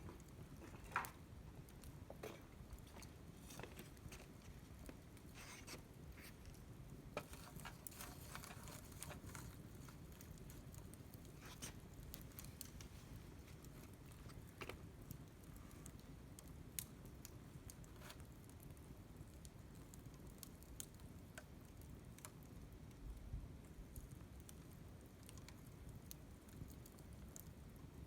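Wood campfire crackling softly, with scattered irregular pops and snaps over a low steady rumble of the flames; the sharpest pop comes about a second in.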